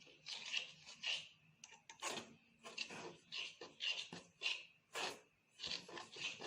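Pizza dough being kneaded by hand: repeated rubbing and squishing strokes, roughly two a second, at an uneven rhythm.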